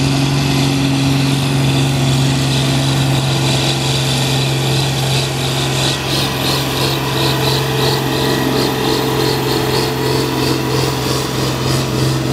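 John Deere farm tractor's engine working hard under load as it pulls a weight-transfer sled, a steady loud drone. About halfway through, a rhythmic high clatter of about two to three beats a second joins it.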